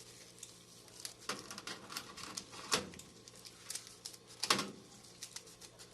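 Knife chopping acerola and pitanga leaves: irregular cutting taps, with three louder knocks among lighter clicks.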